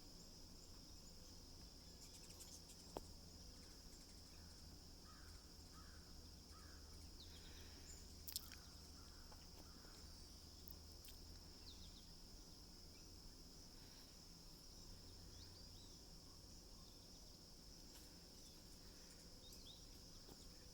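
Faint steady insect chorus, a continuous high buzz, with a few short bird chirps scattered through and two faint clicks, about 3 and 8 seconds in.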